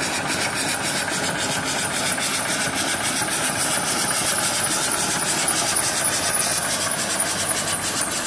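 Small homemade single-cylinder steam engine on a vertical boiler running at a quick, even exhaust beat with steam hissing. It is speeding up because the alternator's charging load has been switched off.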